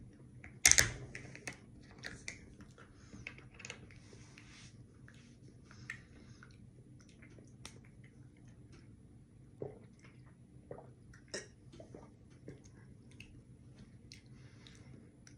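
Chewing and handling noises: scattered small clicks and rustles, with a sharp knock about a second in, as a mouthful of marshmallow cake is eaten and a plastic Prime bottle is picked up and drunk from.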